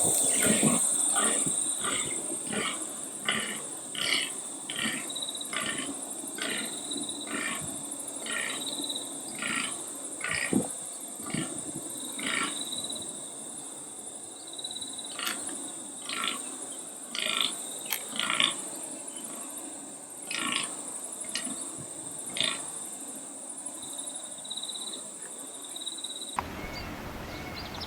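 Fallow deer buck groaning in the rut: a long bout of short, evenly repeated groans, about two a second at first, then more spaced out, over a steady high-pitched whine.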